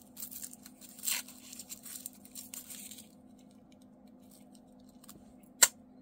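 Crinkly wrapping being picked and torn off a small handmade watercolour half pan, rustling for about three seconds, then a single sharp click near the end as the pan is set down in a metal tin.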